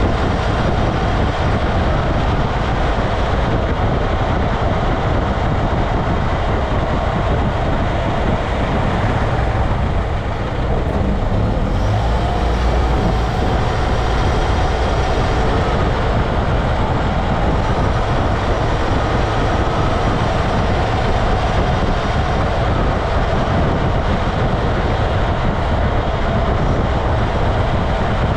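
Steady road noise heard from under a moving truck: tyres rolling on pavement and rushing air, with a deep drone and a faint steady whine.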